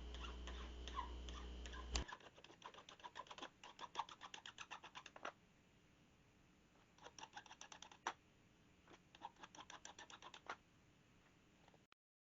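Near silence with faint runs of small, quick clicks and taps, like light handling of small hard parts.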